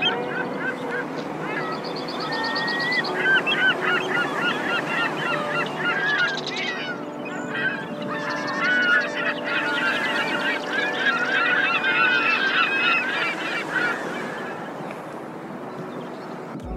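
A flock of birds calling over one another, with many short calls that rise and fall in quick succession, busiest through the middle and thinning out near the end.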